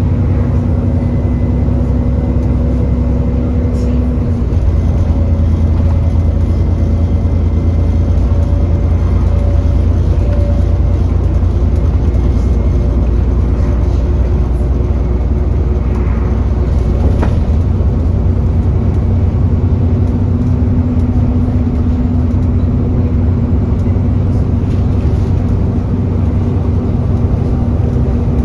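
Alexander Dennis Enviro400 double-decker bus running, heard on board: a loud, steady drone of engine and cooling fan (the 'hoover') with several steady tones, the fan running hard because the bus is overheating. The low drone grows louder about four seconds in and eases again around twenty seconds.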